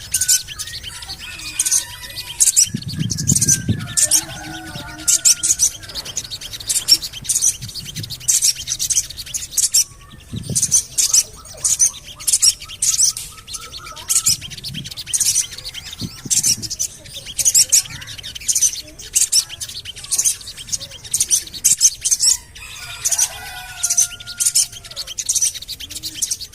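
Sogon bird calling a rapid series of short, high 'cuit' chirps, about two a second, steady throughout. Fainter lower warbling notes come in near the start and again near the end, and there is a brief low thud about three seconds in.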